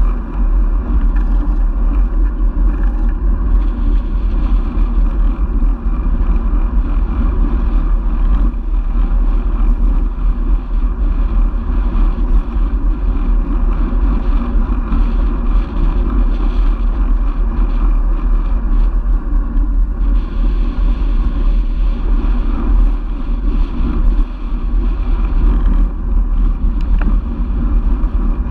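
Wind buffeting the microphone of a handlebar-mounted camera on a moving road bike: a steady, loud low rumble with a rushing noise of riding over it.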